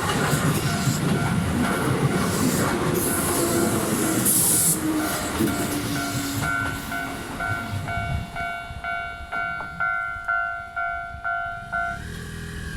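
A Keihan electric train passes over a level crossing, its running noise loud for the first few seconds and then fading. The level crossing alarm rings steadily under it, about two strikes a second, and stops about a second before the end.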